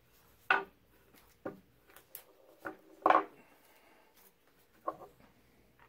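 A paper patch strip being handled on a tabletop: a handful of short paper rustles and light taps, the loudest about half a second and three seconds in.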